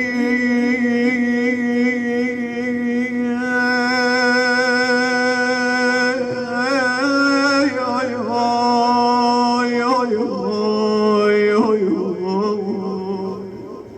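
A man's solo voice singing a long wordless melisma (aahat) of a Husayni elegy: long held notes with vibrato, stepping to new pitches, then sliding down and fading near the end.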